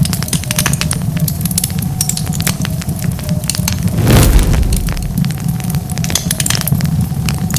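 Wood fire crackling: a dense run of sharp pops and snaps over a steady low rumble, with one louder, deeper thump about four seconds in.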